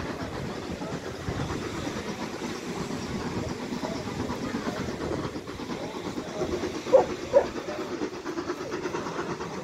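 Steam train running with a steady low rumble and hiss as it approaches. Two short, loud sounds come about half a second apart, about seven seconds in.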